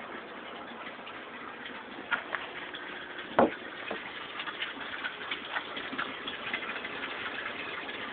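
Steady running and splashing of water in an aquaponic fish tank, with small ticking drips, and one sharp knock about three and a half seconds in.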